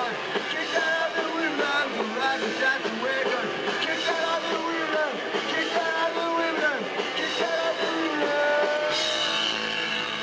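Pop-punk band playing a song live: electric guitar with sung vocals.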